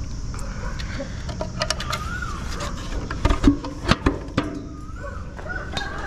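A run of sharp knocks and clatters from handling and climbing gear, loudest about halfway through, over a low rumble. A bird calls several times in short notes that rise and fall.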